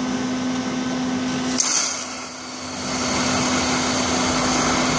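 TIG welding arc struck about one and a half seconds in with a sudden crackle, then a steady hissing buzz as a fusion pass is run without filler rod on a steel tube fitting. Before the arc there is a steady low hum.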